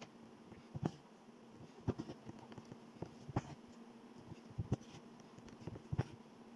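Embroidery needle piercing fabric stretched taut in an embroidery hoop and thread being pulled through: a series of short soft taps roughly every second, over a faint steady hum.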